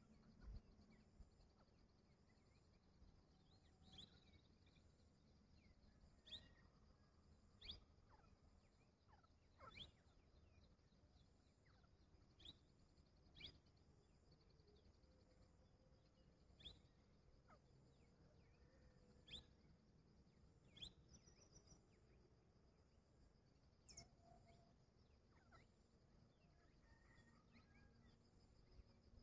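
Near silence in open country, broken by faint, brief bird chirps, each a quick falling note, every second or two, with one short fast high trill about two-thirds of the way through.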